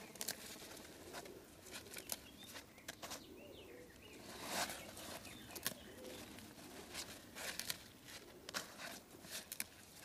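Fresh kaldirik (eastern borage) leaves and stalks being handled and stripped by hand: leafy rustling with a run of sharp little snaps and crackles, and a louder rustle about four and a half seconds in.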